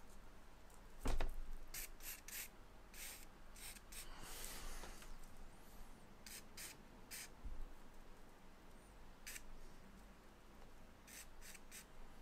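Charcoal scratching across drawing paper in short strokes, a dozen or so in quick clusters of two or three, one longer stroke about four seconds in. A soft knock about a second in is the loudest sound.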